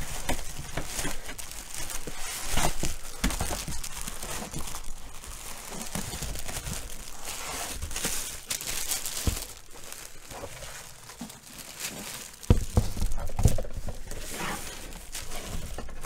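Plastic wrapping crinkling and rustling against cardboard as a boxed mini fridge is slid out of its box, with a few heavier thumps about three-quarters of the way through.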